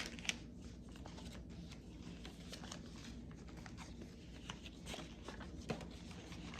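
Faint handling noise: light rustling and scattered small clicks as the pieces of a cross-stitch kit are handled, with one sharper tick about a third of a second in.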